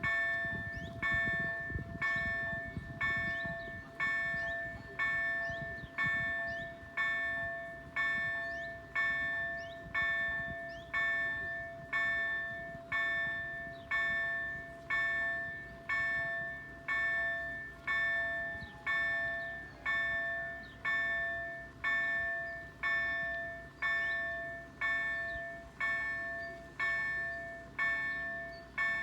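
Level-crossing warning bell, an EDG-2005 electronic bell, striking about once a second with a ringing tone that dies away after each strike. A low rumble fades out over the first few seconds.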